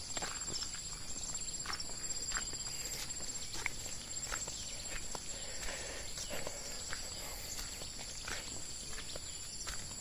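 Footsteps on a dirt path at a walking pace, with a steady, high-pitched drone of insects underneath.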